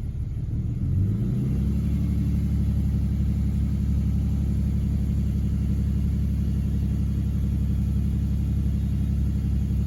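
Lexus GS350's 3.5-litre V6 running steadily. About a second in, its speed rises a little from idle and is then held there.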